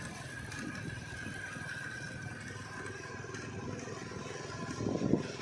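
Cargo truck engines labouring up a steep grade, a steady mechanical rumble with a short louder surge near the end.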